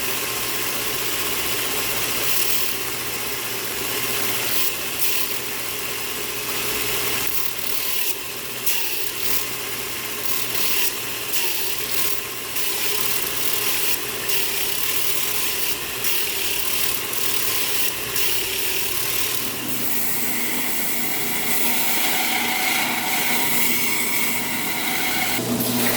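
Shop machinery running steadily with a dense noise and faint clicking; about twenty seconds in the sound changes and a steady whine comes in.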